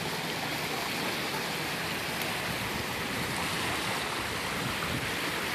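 Small waves washing onto a sandy beach, a steady even hiss of shallow water at the shoreline.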